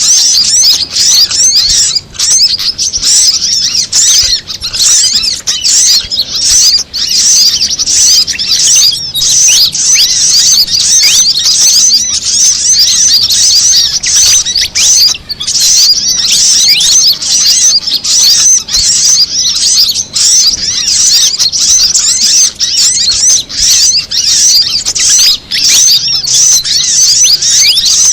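Dense mix of small-bird calls, many quick high chirps and trills overlapping without a break. It is a bird-lure recording that layers fantail (kipasan) calls with brown-throated sunbird (kolibri kelapa) and female sogon calls.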